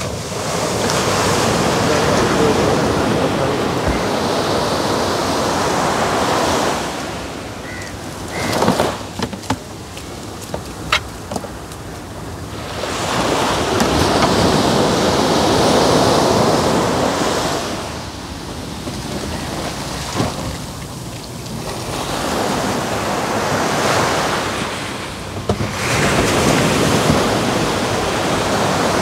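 Sea surf washing onto a beach, the rush of the breaking waves swelling and fading in long surges several seconds apart. A few short knocks sound in a lull in the middle.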